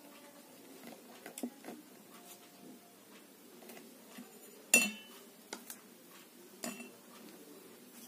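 Several light clinks and taps of hard objects over low room noise, the loudest a sharp clink with a brief ring about halfway through.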